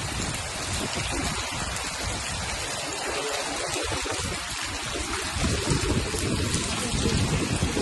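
Heavy rain with running floodwater, a loud continuous hiss. A low rumble swells in the last couple of seconds.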